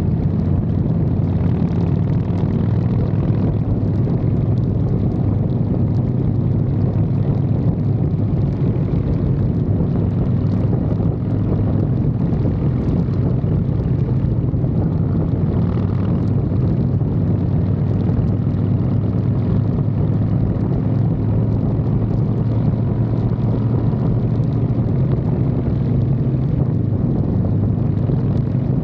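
Harley-Davidson Fat Boy's V-twin engine running steadily at cruising speed, picked up close to the engine from a mount on the frame, with wind and road noise.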